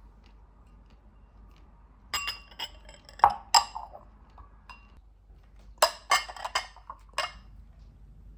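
Ceramic bowls clinking against each other and against a spoon and chopsticks as they are stacked: two clusters of sharp clinks with a short ring, about two seconds in and again around six seconds in.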